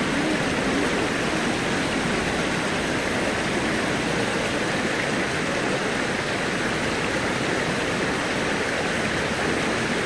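Shallow stream flowing steadily over rocks and stepping stones, an even, unbroken water noise.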